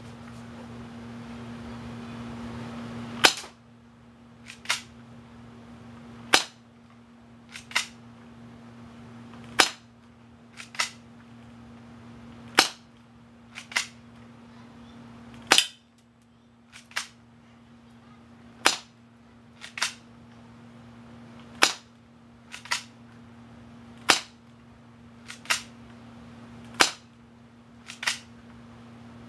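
S/R Industries Series 1900 spring airsoft pistol being fired repeatedly: a sharp snap about every three seconds, the first about three seconds in. About a second after each snap comes a quicker pair of clicks.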